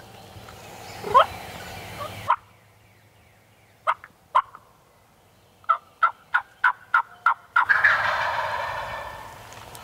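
Wild turkey calling: a run of about seven quick yelps, then a loud rattling gobble about three-quarters of the way in that fades over a second or so.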